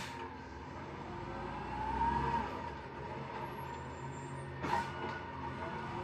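Recycling truck's engine running, swelling briefly with a rising-then-falling whine about two seconds in, and a sharp knock about five seconds in.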